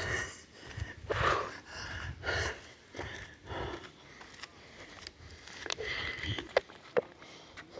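Heavy breathing close to the microphone from a hiker out of breath, a loud breath about every second and a bit for the first few seconds, then a few sharp clicks.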